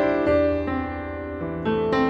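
Instrumental background music added in place of the original sound: sustained chords with new notes struck a couple of times.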